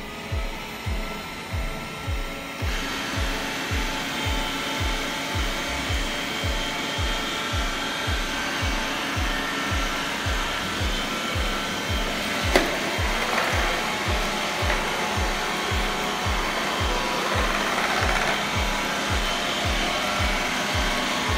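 Roborock S50 robot vacuum running on a cleaning run: the steady whir of its suction fan, which grows fuller about two and a half seconds in, with a single knock near the middle. Background music with a steady beat plays under it.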